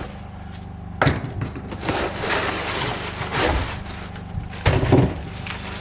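Boxes and packaging being handled: a sharp knock about a second in, then rustling and scraping with a few louder knocks near the end, over a steady low hum.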